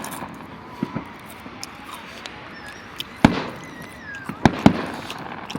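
Fireworks bursting overhead: about six sharp bangs, the loudest about three seconds in and two close together near the end, with faint whistling glides in between.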